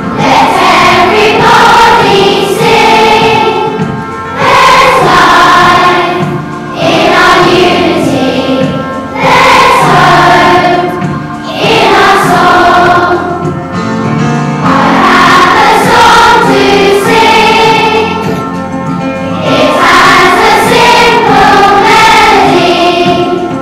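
A large choir of primary-school children singing a song together, in phrases of about two to three seconds with short breaks between them.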